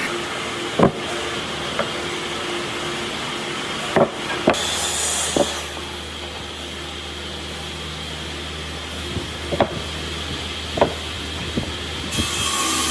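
Workshop noise: about half a dozen sharp knocks and taps, spread irregularly, over a steady hum and hiss.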